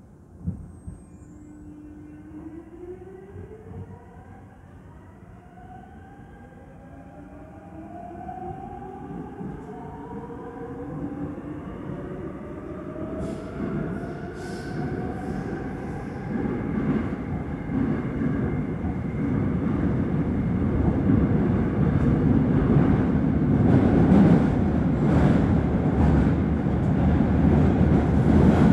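Seoul Subway Line 5 electric train pulling away from a station, heard inside the car. A thump about half a second in is followed by the traction motors' whine rising in pitch, in several stepped tones, as the train accelerates. Running noise grows steadily louder, with repeated clicks from the rails from about halfway on.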